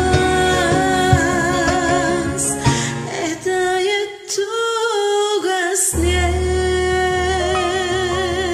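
A woman singing a slow ballad in Bosnian over a karaoke backing track, holding long notes with vibrato. The low accompaniment drops away for a couple of seconds in the middle, then comes back in.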